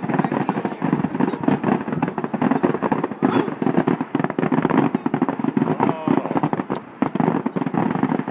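Fireworks going off in a rapid, unbroken barrage of bangs and crackling pops.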